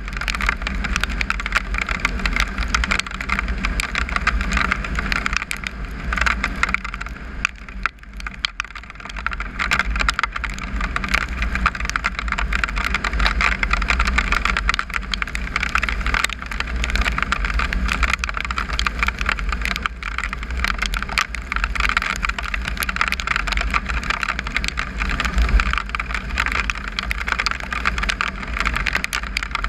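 Wind rushing over a motorcycle-mounted camera microphone while riding a Triumph Tiger 955i on gravel, with the bike's three-cylinder engine and the tyres on gravel running underneath. The sound drops briefly about eight seconds in.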